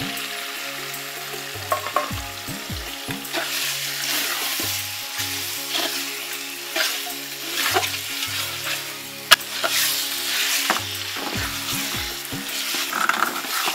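Raw country-chicken pieces sizzling and frying in hot spiced oil in a large metal wok, while a metal ladle stirs and scrapes them in repeated strokes. A single sharp knock of metal on the pan comes about nine seconds in.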